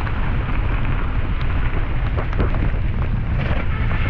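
Heavy wind rumble buffeting a GoPro action camera's microphone while a mountain bike rides the trail, with steady tyre noise and a few light knocks.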